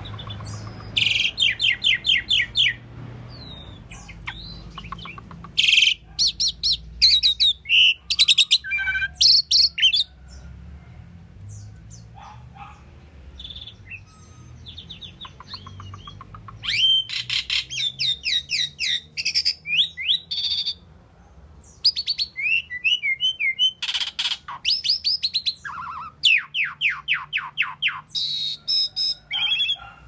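Asian pied starling singing: phrases of rapid repeated chattering notes mixed with short whistles, with a lull about halfway through.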